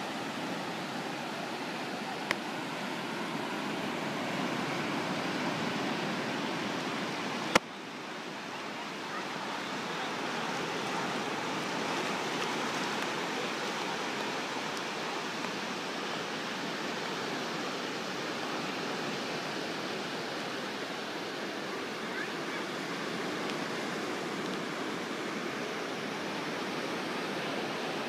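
Steady wash of low surf breaking on a sandy beach, with a sharp click about seven and a half seconds in.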